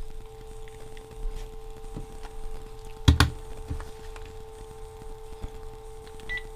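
Dial tone playing through a Panasonic cordless phone's newly fitted 0.25 W hands-free speaker, a steady tone that stops shortly before the end; the sound is small, as the replacement speaker is too weak. A sharp knock of handling about three seconds in.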